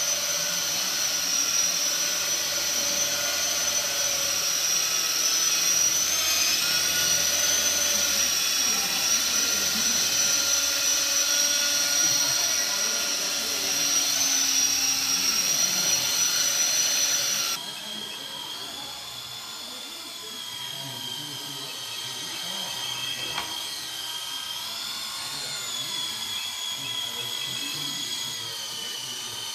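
Small electric remote-control helicopters flying, their motors and rotors giving a steady high-pitched whine. About two-thirds of the way through the sound switches abruptly to a quieter, lower whine that rises and falls in pitch as the motor speed changes.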